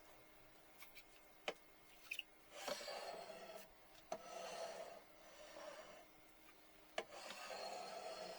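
Three scraping strokes, each about a second long, with a few sharp clicks between them.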